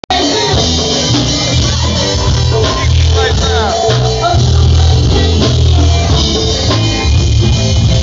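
A live band playing loud in a bar, with bass guitar and drum kit; a bass line of held low notes changes about once a second. Voices of people talking are heard over the music.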